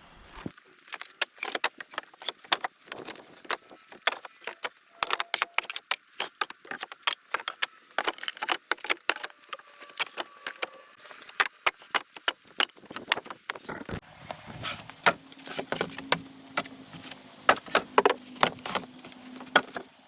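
A long run of irregular light clicks and clatters, with a low steady hum joining in for the last five seconds or so.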